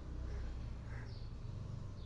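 Faint, scattered bird chirps over a low, steady background hum.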